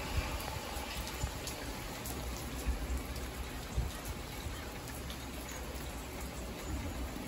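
Rain hitting a car's windshield and roof, heard from inside the moving car over a steady low road rumble, with scattered sharp taps of single drops.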